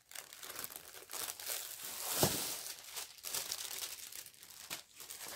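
Clear plastic wrapping around a rolled diamond painting kit crinkling as it is handled, in a run of irregular crackles, loudest about two seconds in.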